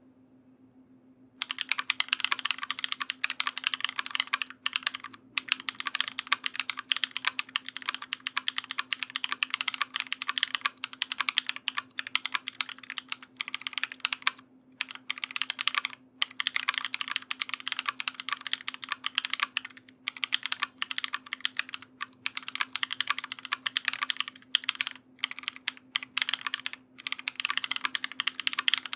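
Continuous fast typing on a Monokei Kei custom mechanical keyboard with Everglide Bamboo tactile switches, a brass plate, JTK keycaps and case foam: a dense run of keystroke clacks with brief pauses, starting about a second and a half in.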